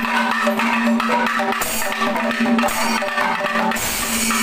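Music with fast drumming and percussion over a steady held drone.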